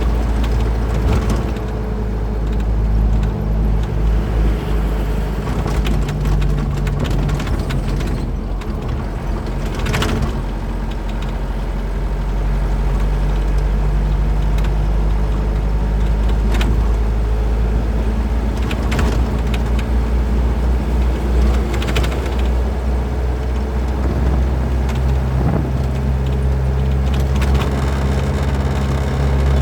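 Truck engine running on the road, a steady low hum whose pitch shifts a couple of times, with a few short knocks.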